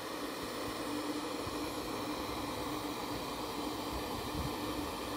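Steady static hiss from a Sony CXA1619 radio receiver board tuned to an empty TV band with no station on it, with a low steady hum under the hiss.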